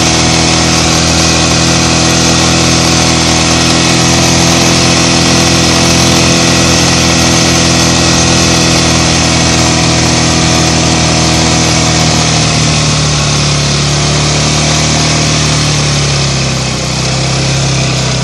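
Snowmobile engine running steadily under way, with a steady high hiss over it. The engine note eases down about two-thirds of the way through as it slows.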